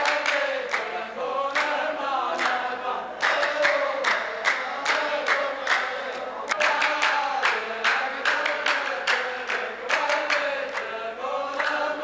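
A row of men chanting a line of poetry in unison, with many sharp handclaps over the voices.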